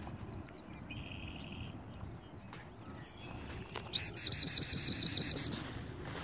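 A loud, rapid run of about a dozen high whistled notes, about a second and a half long, starting about four seconds in, over a faint steady outdoor background.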